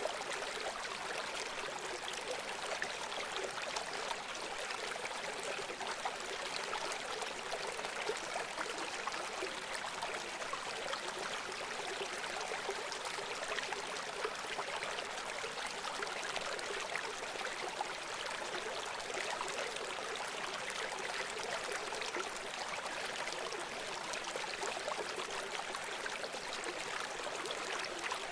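River water flowing and splashing in a steady, continuous rush, with fine trickling detail and no low rumble.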